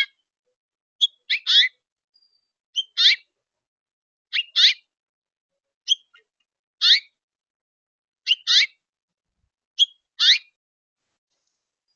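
A bird calling over and over, about once every one and a half seconds: each call is a short high note followed by a louder note that slurs downward.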